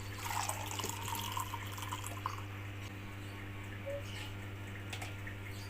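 Warm homemade ginger, betel-leaf and palm-sugar drink poured through a strainer, splashing and trickling. The pour is strongest over the first two seconds, then thins to faint dribbles.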